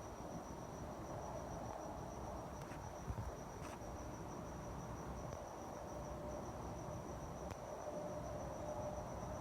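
Crickets chirping: a steady, rapidly pulsing high trill over a low background rumble, with a few faint clicks.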